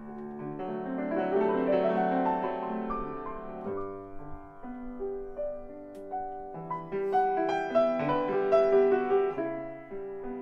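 Steinway & Sons Model M grand piano being played: overlapping sustained notes and chords, with a rising run of notes swelling in loudness about a second in. It turns softer and sparser in the middle, then comes back louder with higher notes near the end.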